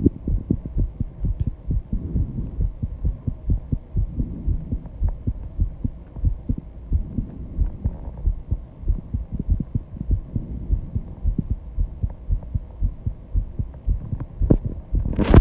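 Human heartbeat heard close up after intense exercise: a steady run of low thumps. A brief louder noise cuts in just before the end.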